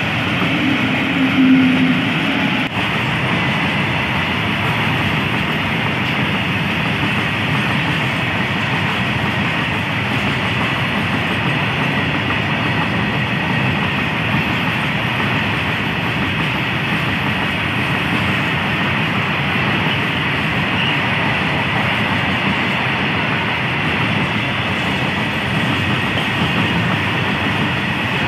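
Freight train of open-top steel wagons rolling past at speed: a steady rumble with wheels clattering over rail joints and a faint high wheel squeal. About a second in, a brief louder hum as a pair of electric locomotives in the middle of the train goes by.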